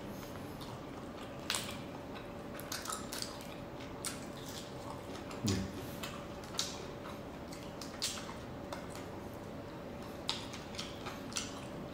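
Close-miked eating sounds: scattered wet clicks and crackles of a shrimp being peeled by hand and chewed, with a faint steady hum underneath.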